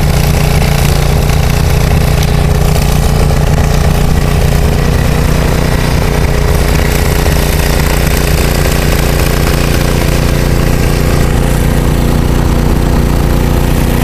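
Case 446 garden tractor's engine running steadily at a constant speed, driving its snowblower attachment.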